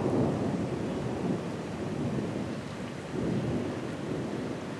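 Rolling thunder rumbling over steady rain, fading after a loud peak at the start and swelling again about three seconds in.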